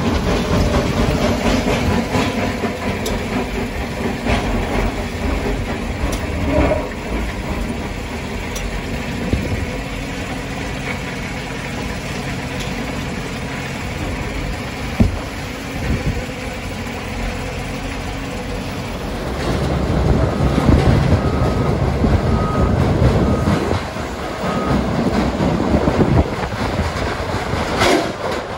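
Heavy quarry machinery working blasted rock, heard from inside a machine's cab: a steady engine and hydraulic rumble with rock scraping and clattering. It turns louder and rougher about two-thirds of the way in.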